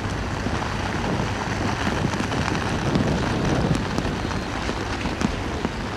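Steady wind buffeting the microphone, with rain falling.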